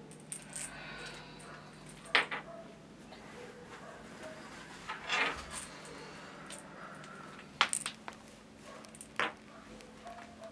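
Small medicine bottle being handled: three sharp clicks spread through, and a short rattle about five seconds in, like pills shaken inside.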